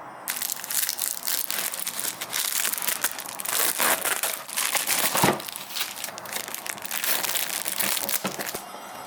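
Dense crinkling and crumpling noise, starting abruptly just after the start and cutting off shortly before the end.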